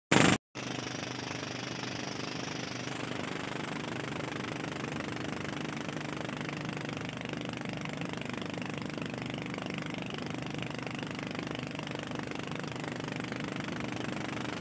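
A small fishing boat's motor running steadily, with wash and wind noise over it. A brief loud blip comes at the very start.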